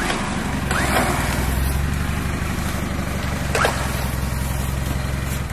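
Suzuki Escudo off-road 4x4's engine idling steadily, dying away right at the end.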